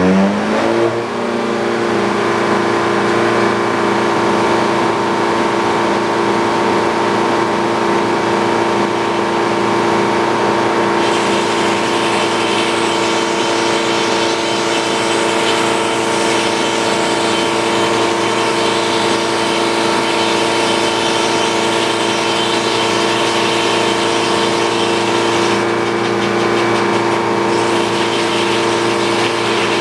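Sawmill engine rising in pitch to speed in the first second, then running steadily at a constant pitch. A brighter hiss joins about eleven seconds in.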